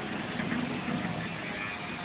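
SERTOM four-roll plate bending machine running on its automatic cycle, the rolls turning to feed a metal sheet through and curl it into a cylinder: a steady, low mechanical drone.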